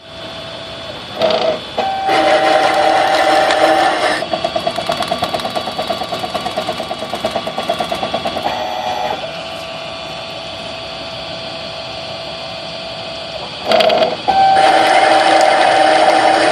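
Prototype CNC mini lathe running, its motor giving a steady whine. The whine is broken twice by a louder stretch of cutting noise, followed by a fast pulsing beat, as the underpowered spindle motor labours and gets stuck under even a light cut.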